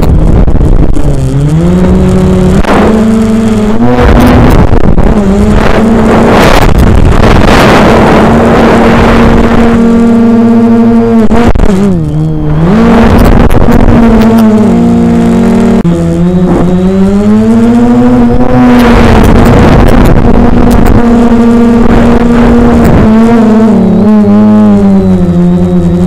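Brushless motors and propellers of a scratch-built freestyle quadcopter whining loudly in flight, picked up by its onboard camera, the pitch rising and falling with throttle changes. The pitch dips sharply about halfway through and drops briefly several more times, with bursts of wind rush over the motors.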